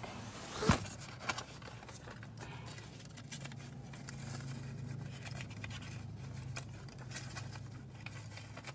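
Handling noise from a covered phone: a sharp knock, a few faint clicks and rustles, and a low steady hum underneath.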